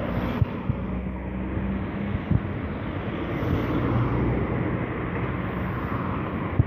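Class 70 diesel locomotive's GE PowerHaul V16 engine running with a steady low hum.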